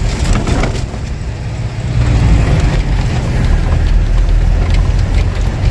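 Diesel truck engine and road noise heard inside the cab while driving, a steady low rumble that gets louder about two seconds in.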